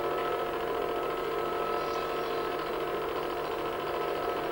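Cine film projector running: a steady mechanical whir with a few held, humming tones.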